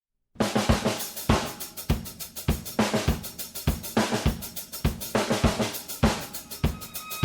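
Music with a drum kit playing a steady beat of snare, bass drum, hi-hat and cymbal. It starts abruptly after a brief moment of total silence.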